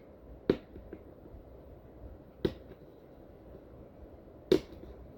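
Three sharp clicks about two seconds apart, with a fainter one just after the first: fingers picking at the tape on a toy's packaging box.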